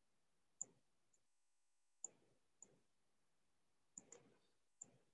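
Near silence broken by about six faint, sharp computer mouse clicks, spaced irregularly.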